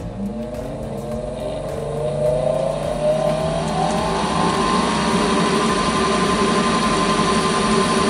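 Replacement inducer motor of an ICP gas furnace starting up: a whine that rises in pitch over about four seconds as the motor comes up to speed, then runs steadily. This is the first step of the furnace's heating sequence, now that the motor gets proper voltage.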